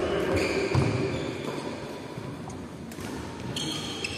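Badminton rally: court shoes squeaking on the floor and footsteps thudding, with the sharp tap of a racket hitting the shuttlecock about three seconds in.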